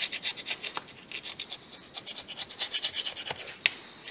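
Metal scraper blade scraping dirt and rust off the brake-line port face of an ABS hydraulic unit, in quick back-and-forth strokes, about six or seven a second, with short pauses. One sharp click comes near the end.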